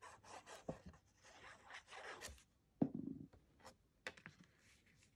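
Cardstock being handled: soft rustling and scraping of paper against paper and the craft mat, with a few light clicks and one sharp knock a little after halfway.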